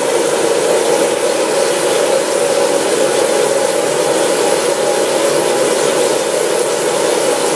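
Tap water from a bathroom faucet running steadily into the sink basin.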